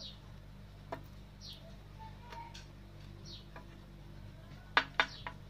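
A few sharp clicks of objects being handled on a wooden table, the loudest two close together near the end. Short, high, falling chirps recur faintly in the background over a low steady hum.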